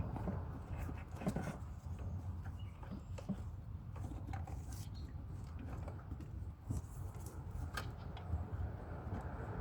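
Scattered light clicks and taps of hands handling and pressing a plastic ABS control module onto its seat in a car's engine bay, over a low steady background rumble.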